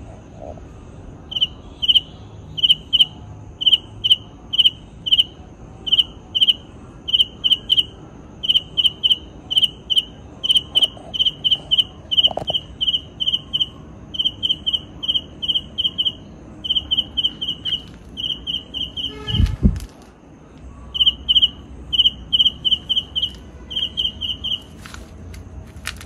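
A night insect chirping in short, high, evenly pitched chirps, about two or three a second and often in pairs, over a faint steady higher whine. About two-thirds of the way through, a low thump comes and the chirping stops for a second, then goes on.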